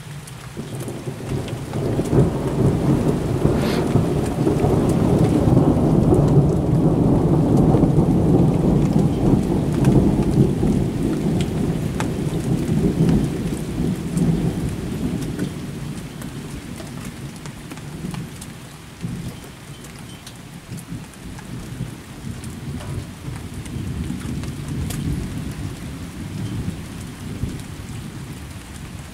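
Long rolling thunder from a thunderstorm: it swells about two seconds in, is loudest midway through its roll and dies away over some fifteen seconds, with a weaker rumble near the end. Steady rain patters throughout.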